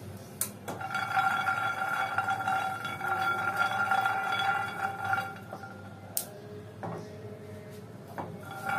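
Peanuts rolling and rattling around a nonstick frying pan as it is shaken while they dry-roast, the pan ringing steadily as they roll. The rolling stops about five seconds in and starts again near the end, with a sharp knock about half a second in and another about six seconds in.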